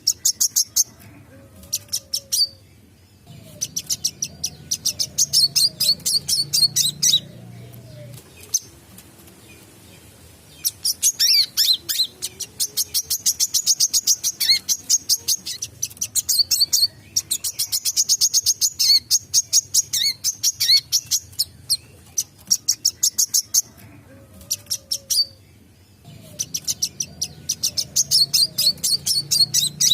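Wiceh (sunbird) singing vigorously: long rapid trains of sharp, high chirps broken by a few short pauses, with a faint low hum underneath.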